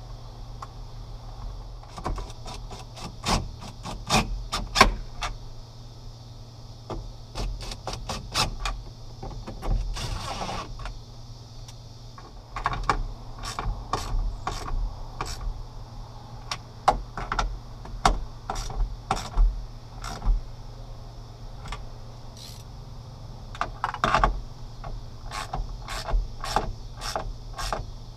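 Ratchet wrench clicking in short, rapid runs again and again, working the three nuts that hold a new side mirror to a pickup's door.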